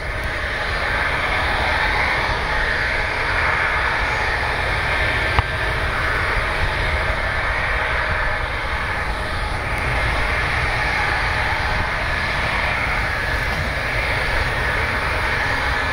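Jet airliner engines running steadily in the distance: a constant rumble with a thin high whine over it.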